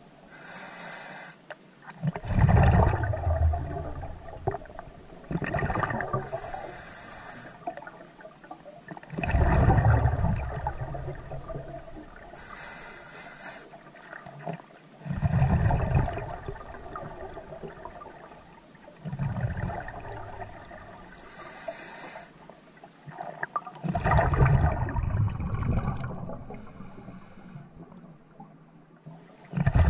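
Scuba diver breathing underwater through a regulator: a short hissing inhale, then a longer bubbling rush of exhaled air, repeated about five times at an unhurried pace.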